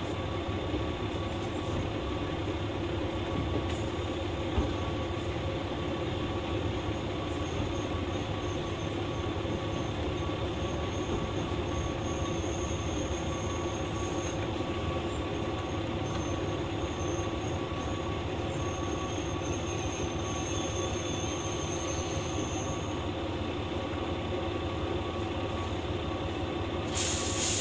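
JR West KiHa 120 diesel railcar running along the line: a steady engine and driveline drone with wheel-on-rail noise. A faint high wheel squeal comes and goes through the middle, and a short hiss sounds near the end.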